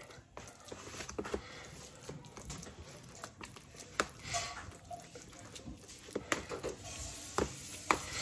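Leftover cooked potato-and-cauliflower curry (aloo gobi) being mashed in a small container: irregular soft taps, clicks and squashing from the utensil against the food and the container.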